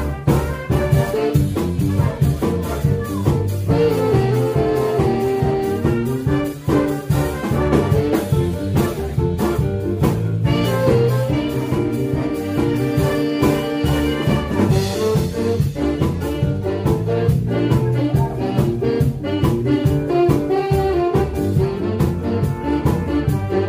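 A big band playing jazz, with saxophones, trumpets and trombones over a steady beat.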